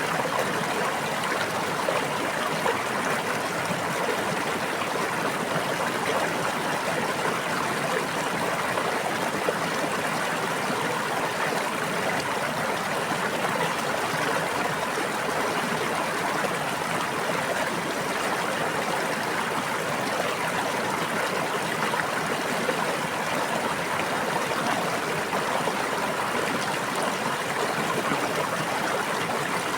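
Flowing stream water, a steady babbling rush without pauses.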